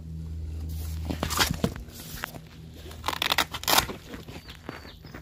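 A folding fabric-backed solar panel being handled and set up on its legs: a few short rustling, scraping sounds, over a steady low hum.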